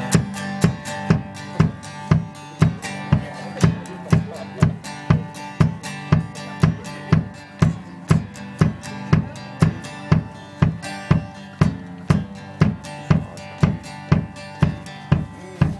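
Live acoustic music, instrumental: plucked acoustic strings over a kick drum beating steadily about two and a half times a second.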